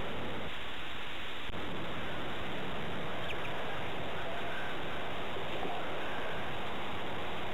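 A few faint, short peeps from baby birds huddled in a box, about three seconds in and for a few seconds after, over a steady rushing noise.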